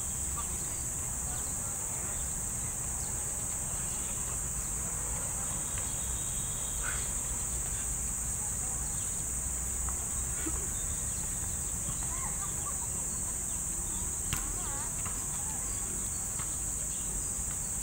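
Steady high-pitched insect drone, unchanging throughout, over a low rumble of road traffic.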